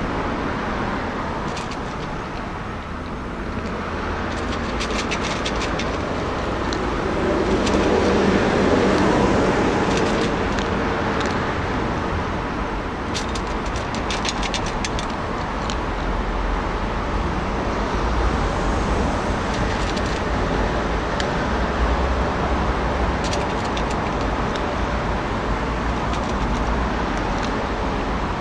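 Steady road traffic noise, swelling as a vehicle passes about eight seconds in, with bursts of quick clicks from a cat crunching dry kibble out of a stainless steel feeding tray close by.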